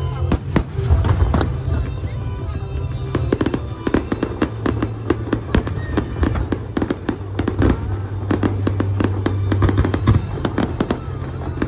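Aerial fireworks going off in rapid succession, many sharp bangs and crackles a second, over a music soundtrack with a steady low bass.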